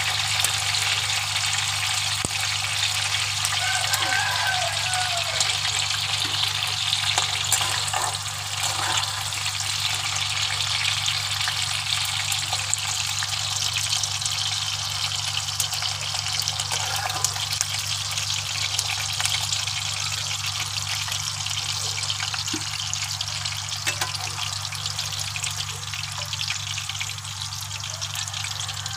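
Green bell pepper pieces sizzling in hot oil in a pan, a steady dense crackle while the pieces are lifted out with a slotted steel spoon. The sizzle eases a little toward the end as the pan empties. A steady low hum runs underneath.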